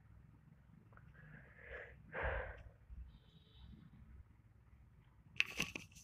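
Faint room tone with two short breathy sniffs from a person about two seconds in, the second louder. A few sharp clicks follow near the end.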